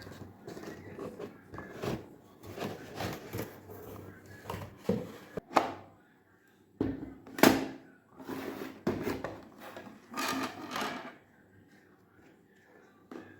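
Toy and its packaging being handled: irregular knocks, scrapes and rubbing that stop about eleven seconds in.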